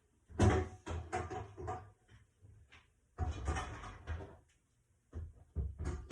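Kitchen cupboards being opened and shut as things are put away: clusters of knocks and clatter about half a second in, again around three seconds in, and a short knock near the end.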